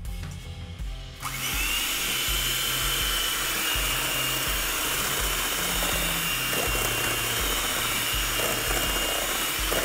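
Electric hand mixer switching on about a second in and running steadily at speed with a high whine, its twin beaters whisking raw eggs in a stainless steel bowl. Background music with a low bass line plays underneath.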